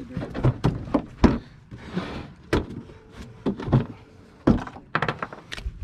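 A string of irregular knocks, clunks and taps as the lid of a plastic cooler is opened and a caught bass is handled over it.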